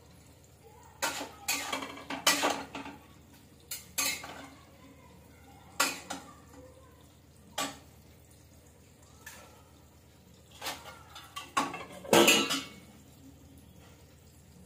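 Stainless-steel spoon and tiffin boxes clinking and scraping as food is served into a stacked steel tiffin carrier. The clatters are scattered and irregular, with a burst in the first few seconds, a few single clinks, and the loudest cluster about twelve seconds in.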